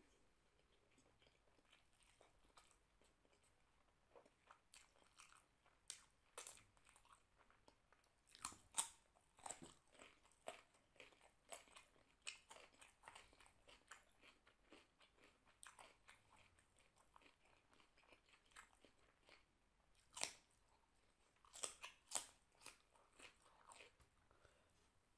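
Close-miked chewing of rice and vegetable curry eaten by hand, with crisp crunches from bites of raw cucumber. The crunches and wet mouth clicks come irregularly, loudest about nine seconds in and again around twenty to twenty-two seconds.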